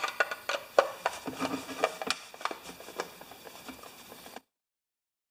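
Irregular small clicks and taps of the plastic base plate of a candle-powered LED lamp being handled and taken apart, with some sharper knocks in the first two seconds. The sound cuts off suddenly about four and a half seconds in.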